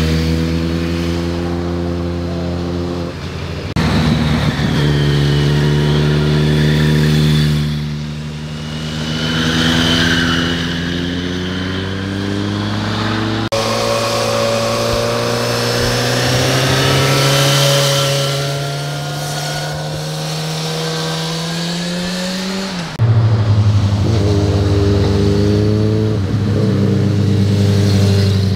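Several motorcycles in turn riding through a hairpin bend, their engines running under throttle with the pitch rising slowly as they pull out of the corner. The sound changes abruptly three times, about 4, 13 and 23 seconds in, as each new bike cuts in.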